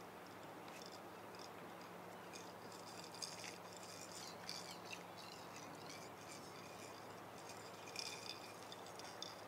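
Faint clicking and rattling of a fishing reel and rod as a hooked catfish is reeled in, with a few louder clicks about three to four seconds in and again about eight seconds in.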